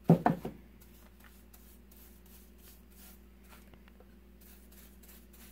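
A short burst of voice right at the start, then faint, repeated swishes of a paintbrush working wet stain over a wooden star.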